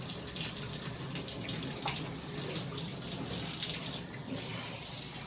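Running water from a tap or sprayer, a steady hiss, rinsing a dog in a bath.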